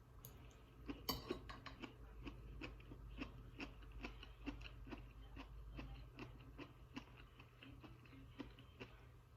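A person chewing food close to the microphone, faint, with a few crisp crunching bites about a second in, then steady chewing at about two chews a second.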